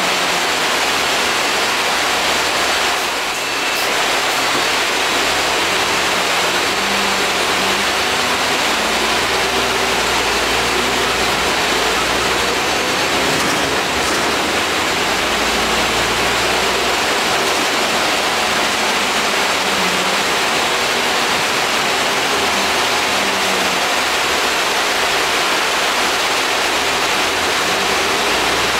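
Inside the lower deck of an Alexander Dennis Enviro 400 double-decker bus on the move: a steady, loud air-conditioning hiss fills the cabin, with the bus's engine and road noise rising and falling faintly underneath.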